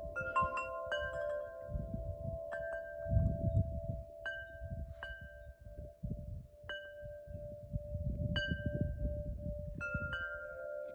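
Wind chimes ringing, struck irregularly every second or so, with several pitches ringing on over a steady lower tone. Low rumbling noise comes and goes underneath.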